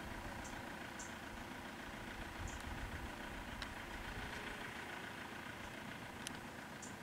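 A vehicle engine idling steadily and fairly quietly.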